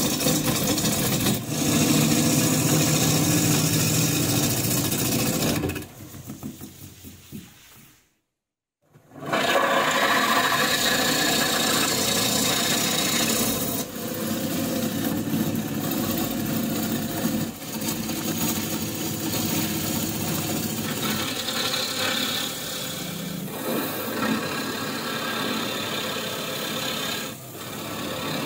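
Bowl gouge cutting the outside of a spinning walnut log blank on a wood lathe: a steady, rough shaving-and-scraping noise as the tool peels off curls. The cutting fades about six seconds in and stops for about a second, then picks up again.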